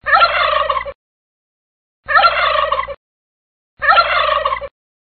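A turkey tom gobbling three times, each gobble a rapid rattling call just under a second long, with short silent gaps between.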